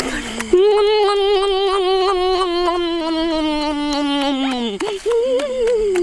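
A boy's long, drawn-out, wavering 'oooh' held for about four seconds and falling away at the end, followed by a shorter rising-and-falling call.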